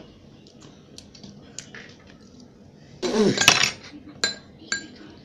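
A fork clinking and scraping against bowls as noodles are eaten, with two sharp ringing clinks near the end. A louder burst of noise lasting under a second about three seconds in is the loudest moment.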